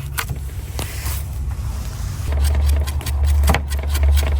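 Kitchen knife slicing a clove of smoked garlic on a cutting board: a run of quick, uneven taps of the blade. A steady low rumble grows loud about two seconds in.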